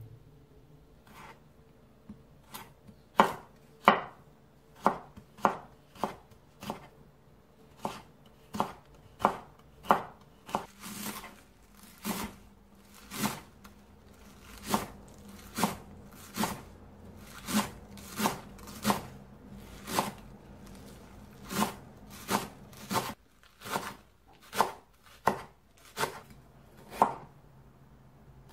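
Kitchen knife chopping garlic chives, then a piece of onion, on a wooden cutting board. The knife comes down in sharp, single strokes, about one to two a second.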